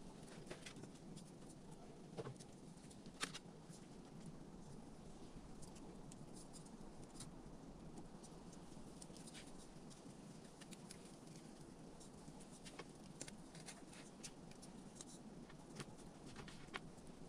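Faint scattered light taps and clicks over a low steady background hiss, the sharpest tap about three seconds in.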